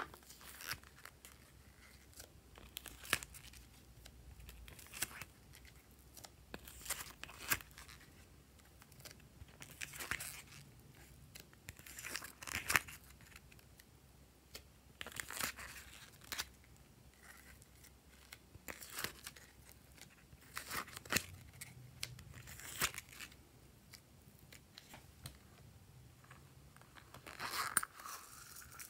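Soft clay being pushed out of a flexible plastic mould by hand, with short crackling, tearing noises from the plastic and clay about every two seconds.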